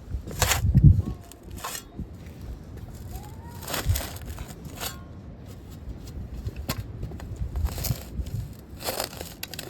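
Garden hand tools scraping and chopping into dirt and turf, in irregular strokes, with the heaviest crunch and thud about a second in.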